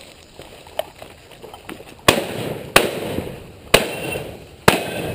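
Four shotgun shots fired in quick succession, a little under a second apart, each echoing briefly.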